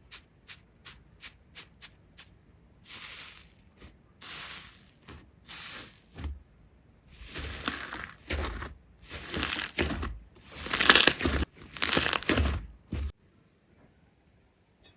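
Hands working a slime: a run of about eight quick clicks, then a series of longer squishing presses, each about a second long. They grow louder, with dull thuds under the later ones, and stop suddenly a couple of seconds before the end.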